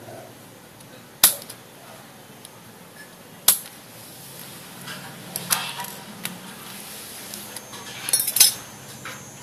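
Sharp clicks and taps of small hand tools and parts against a stone countertop: single clicks about a second in, at three and a half seconds and around five and a half, then a quick cluster of clicks near the end.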